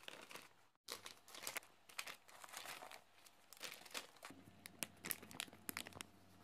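Thin plastic zip bag crinkling and rustling in a quick, irregular run of crackles as hands fill it with cut vegetables. There is a brief silent gap about a second in.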